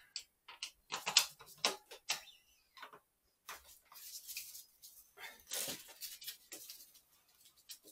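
Irregular clicks, metal knocks and rustling as the rear wheel, axle and brake of a Nicolai Saturn 16 e-MTB are handled and seated in the frame.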